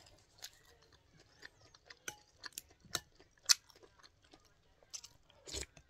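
A person chewing a mouthful of kebab wrap close to the microphone: irregular soft wet mouth clicks and smacks, with a sharper click about halfway through.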